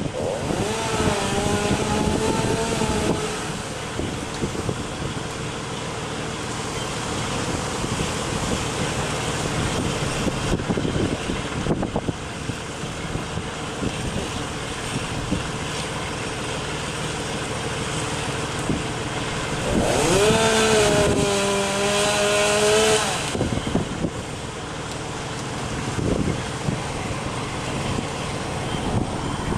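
An engine revving up twice, each time rising quickly in pitch and holding for about three seconds, the second time near twenty seconds in and louder, over a steady rush of storm wind and rain.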